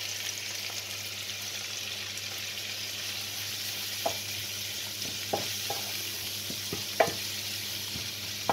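Onion, tomato and spice mix sizzling steadily in a hot frying pan, stirred with a wooden spoon that knocks against the pan a few times, most sharply about seven seconds in.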